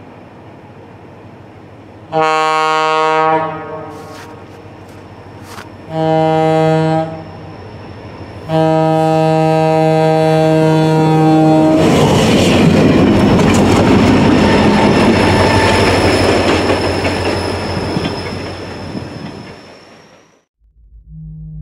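Locomotive air horn on a railroad snow plow train sounding three blasts for a grade crossing, the third the longest. It gives way to a loud rush as the plow passes, throwing snow off the rails with the locomotive pushing it, fading and then cutting off suddenly near the end.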